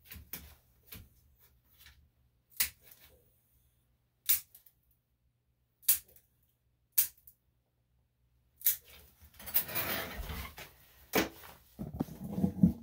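Grooming scissors snipping the dog's coat: single sharp snips one to two seconds apart, then a few seconds of rustling and shuffling near the end.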